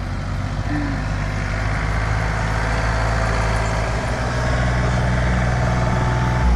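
Engine of a compact front-loader tractor running steadily close by.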